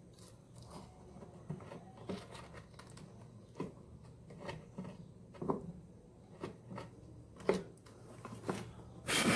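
Steel pliers clicking and scraping on a wire splice and the plastic housing of an electric lunchbox heater as the wire to its heating element is crimped and twisted: scattered small clicks about a second apart, with a louder knock near the end.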